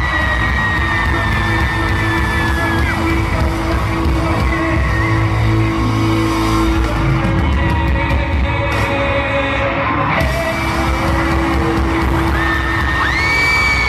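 Live pop-rock band music playing loud in an arena, heard from among the audience, with high-pitched screams from nearby fans near the start and again near the end.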